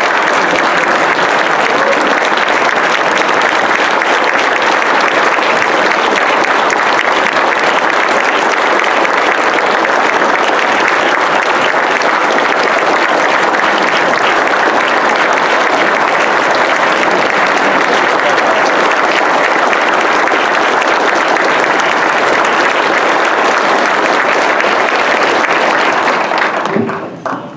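An audience applauding: many people clapping in a long, steady ovation that dies away about a second before the end.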